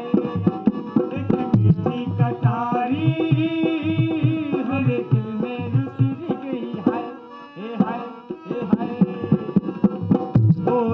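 Music led by quick tabla drumming under a melody with gliding pitches, starting abruptly; it softens briefly a little past the middle.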